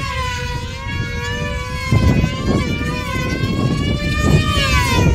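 Two control line combat model airplanes' small two-stroke glow engines running flat out: a high whine from more than one engine, its pitch wavering up and down as the planes circle and dive on their lines.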